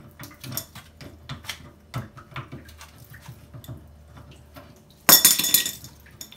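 Small metallic clicks and scrapes of a wrench working a compression-fitting angle stop on a water supply pipe. About five seconds in comes one loud metallic clatter with ringing, lasting under a second, as the fitting is worked loose.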